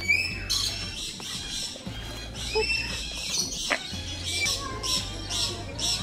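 A flock of lorikeets screeching, many short high harsh calls following one another several times a second.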